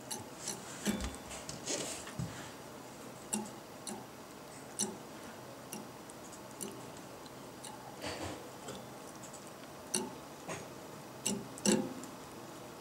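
Cat licking the chrome wire guard of a computer case fan: irregular wet licks and small clicks of tongue and teeth against the metal wire, a tick every half second to two seconds, over the computer's steady faint hum.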